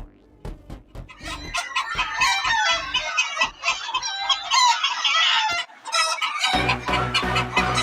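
A flock of chickens clucking and calling, many birds at once. Electronic music with a heavy beat comes in about two-thirds of the way through.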